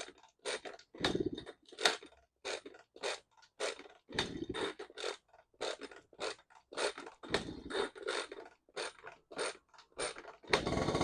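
1977 Honda Express NC50 two-stroke moped being pedal-cranked over and over, a ratcheting stroke about twice a second, as it fails to start on its new coil and condenser. Near the end the engine catches and runs steadily.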